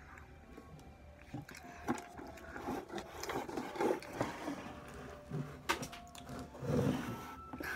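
Close-miked chewing of soft chocolate cake: irregular wet mouth clicks and smacks, with a louder, lower mouth noise near the end.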